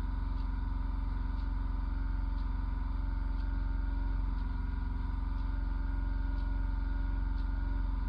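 A steady low hum with many evenly spaced overtones, unchanging throughout, with faint ticks about once a second.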